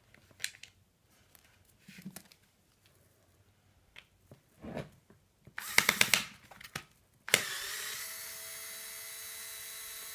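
A few clicks and knocks of the plastic mechanism and tool being handled. Then about seven seconds in, a small cordless electric screwdriver runs with a steady whine for about three seconds, backing out a screw.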